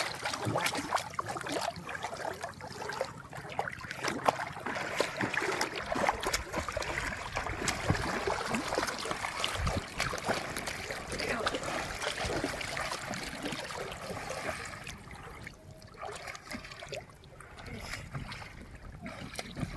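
Water splashing and trickling, with many small knocks and clicks; it grows quieter for the last few seconds.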